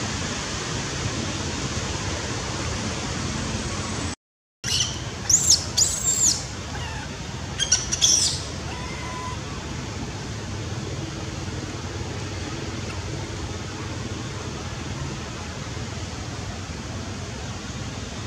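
Steady outdoor hiss that cuts out briefly about four seconds in. About a second later comes a cluster of five or so short, high-pitched squeaky animal calls over about three seconds, then the hiss alone.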